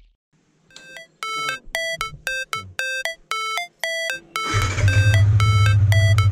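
Background music: a run of short, bright beeping notes, about three a second, then a deep bass beat comes in about four and a half seconds in.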